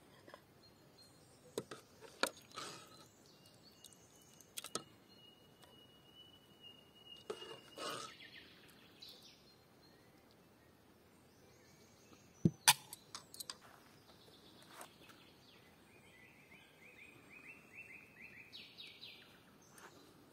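A few sharp clinks of a metal ladle against a steel cooking pot and a plate while stew is served, the loudest pair about halfway through. Birds sing in the background: one long steady whistled note early on, and a quick trill of repeated notes rising in pitch near the end.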